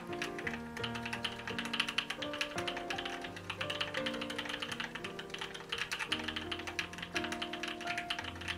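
Steady fast typing on a Noxary Valhalla mechanical keyboard with Gateron Cream Soda switches on a 5 mm polycarbonate plate: many key presses a second. Soft background music of held chords plays under it.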